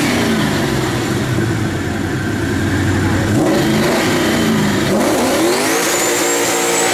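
Ford Mustang's engine revving up and down several times at the drag-strip start line before launch, with a longer rev near the end that carries a high whine rising with it.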